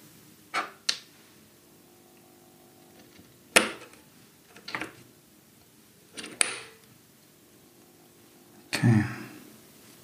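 A handful of sharp clicks and knocks from handling a small circuit board and the plastic holders it sits in, as it is taken off them. The sharpest click is a few seconds in, and a longer rattling knock comes near the end.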